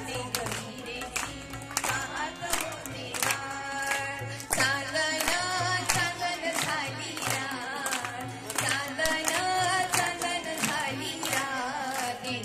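A woman singing a melody with vibrato into a microphone, accompanied by tabla played with the fingers in a steady rhythm and a keyboard instrument.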